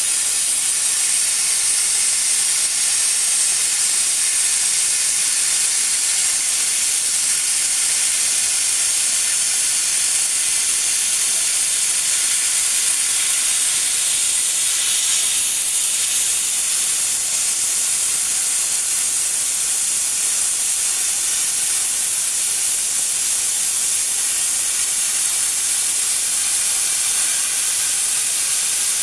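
Portable CNC plasma cutter's torch cutting sheet metal: the plasma arc and its air jet make a steady hiss.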